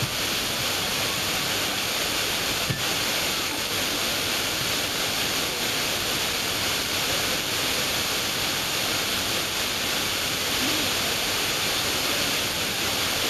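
Steady hiss of an FM receiver tuned to 96.4 MHz with no station audible between meteor-scatter bursts, and a single short click about three seconds in.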